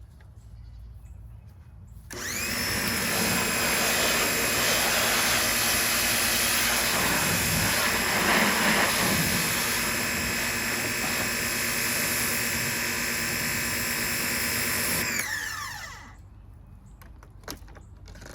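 Caterpillar 2200 PSI electric pressure washer starting about two seconds in with a quick rising whine, then running steadily with the hiss of its high-pressure spray. Near the end it winds down with a falling whine and stops.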